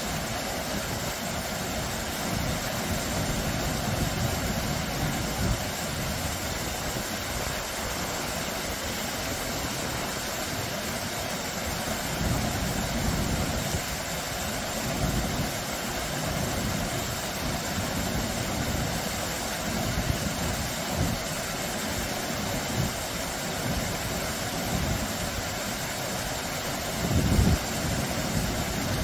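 Water of a small, low waterfall splashing over rock ledges into a shallow stream: a steady, even rush, with uneven low rumbling underneath and a brief louder surge near the end.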